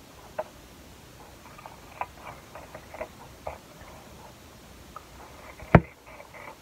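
Fiskars scissors snipping through black paper: a scattered run of short, crisp snips, with one much louder sharp click near the end.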